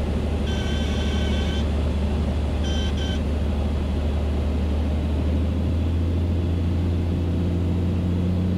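Steady drone of a Beechcraft A36 Bonanza's piston engine and propeller heard inside the cabin, throttled back to simulate an engine failure after takeoff. Two electronic alert tones sound over it, about a second long half a second in and a shorter one near three seconds in: the avionics' terrain warning.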